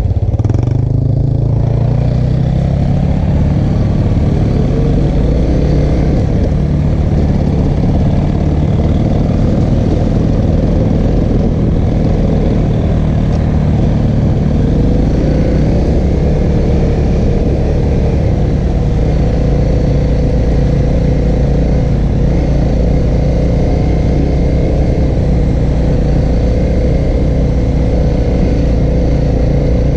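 Honda CRF250L's single-cylinder four-stroke engine running under way on a dirt trail, rising in pitch over the first couple of seconds and then holding a steady note.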